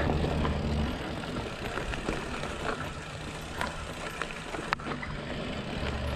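Santa Cruz Blur TR mountain bike rolling down a dirt singletrack: a steady rush of tyre and trail noise with scattered small clicks and rattles from the bike, and one sharper click a little before the end. A low rumble sits under it in the first second and comes back near the end.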